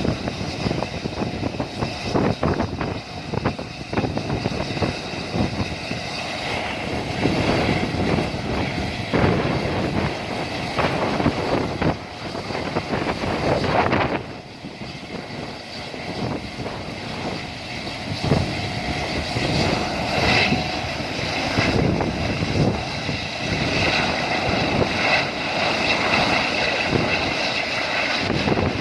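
Helicopter running: a steady engine whine over rough, gusting rotor and wind noise, dipping briefly about halfway through.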